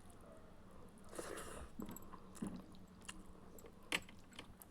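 A person chewing a mouthful of egg and rice, with soft wet mouth clicks and smacks, and one sharper click about four seconds in.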